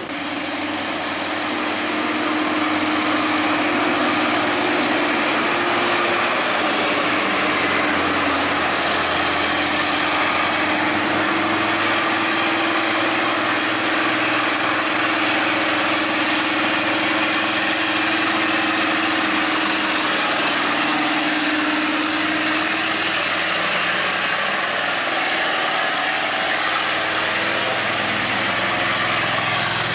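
Heavy truck engine running steadily, with a constant drone and a wide roar of mechanical and road noise. It grows louder over the first two seconds, then holds level.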